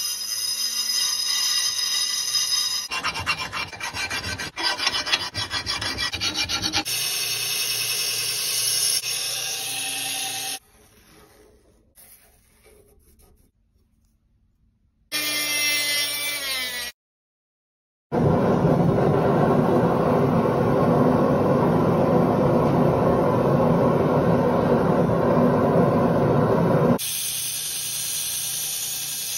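Metalworking shop sounds in quick succession: sawing and rasping on steel, a short stretch of near quiet, a brief rising whine, and a loud steady rushing noise lasting about nine seconds. Near the end comes the steady sound of a belt grinder grinding a steel blade.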